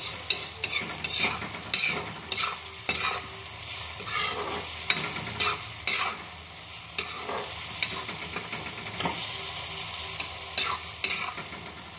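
Metal spoon scraping and clinking irregularly against a kadhai while stirring a frying onion-tomato masala, mixing in freshly added spice powders, over a steady sizzle of frying in oil. The scrapes come thickest in the first half and thin out later.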